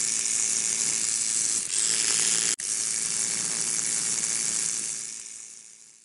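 Steady hiss of electronic noise on the audio feed, with a brief dropout about two and a half seconds in, fading out near the end.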